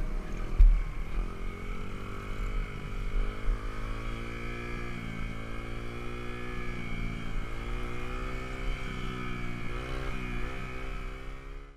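Dirt bike engine running, its pitch rising and falling as the throttle opens and closes, over a low rumble of wind on the microphone. There is a low thump about half a second in, and the sound fades out at the end.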